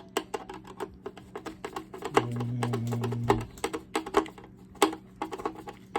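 Phillips screwdriver driving the screw that holds a string trimmer's plastic guard, a run of irregular small clicks and ticks as the screw is turned. About two seconds in, a low steady hum lasts for just over a second.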